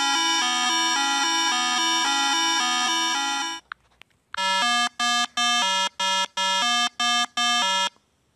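Synthesized electronic siren of a cartoon fire truck in a game: a buzzy tone flipping quickly between two pitches, about four flips a second, for roughly three and a half seconds. After a short gap come seven buzzy electronic horn beeps at one pitch, about two a second, as the cartoon taxi drives in.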